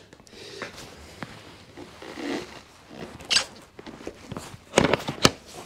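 A motorcycle seat being lowered onto the frame and pressed down: soft rustling and scraping, then a few sharp clicks and knocks about five seconds in as it is pushed into place.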